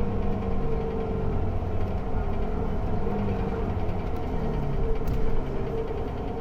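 Mercedes-Benz OC500LE bus engine heard from the rear of the bus, running steadily with a low hum. Its note drops a little about four seconds in.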